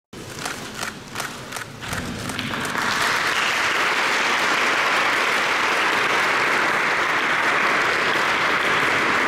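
Audience applause: a few scattered claps at first, swelling within about three seconds into steady, dense clapping.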